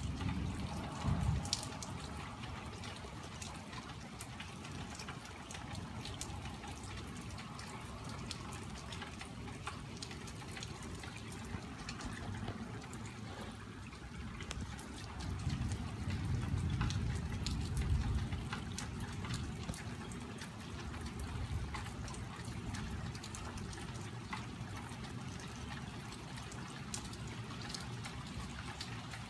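Rain falling, with water trickling and many small drips. A low rumble of thunder swells for a few seconds about halfway through, just after a lightning flash.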